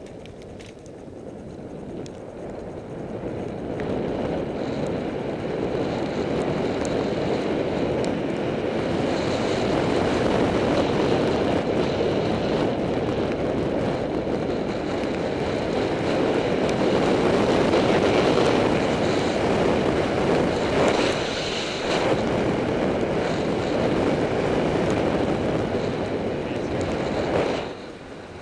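Wind noise rushing over a ContourHD action camera's foam-covered microphone on a moving road bicycle, a steady low rush that grows louder over the first few seconds and dips sharply near the end.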